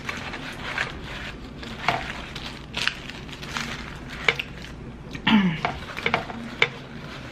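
Close-up handling of a fried chicken sandwich in its paper wrapper: irregular small crackles and rustles as the wrapper crinkles and the crisp breaded chicken and bun are pulled apart by hand.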